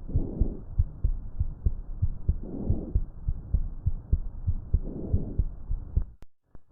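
Heart sounds heard through a stethoscope: repeated low thumps of the heartbeat, with a whooshing swell recurring about every two and a half seconds. The recording stops abruptly about six seconds in, and after a brief gap another similar recording starts.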